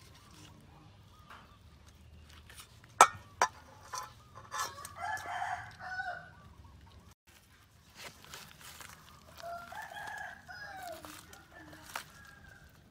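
Two sharp chops of a cleaver cutting through a duck's neck, about three seconds in. A rooster crows twice, each crow lasting a second or two.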